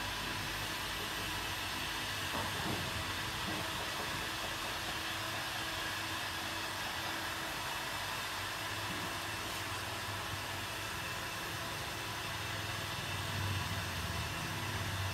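Steady blowing hiss of air-moving workshop equipment, with a low hum underneath that swells slightly near the end.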